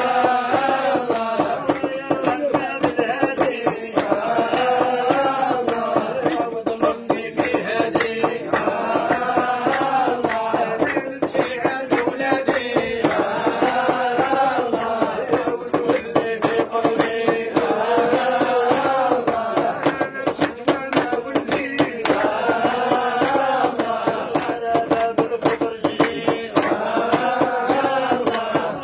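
A group of men chanting a Sufi dhikr of madih, praise of the Prophet, together: a melodic phrase rises and falls about every four and a half seconds over a steady held note. Frequent short, sharp clicks sound through it.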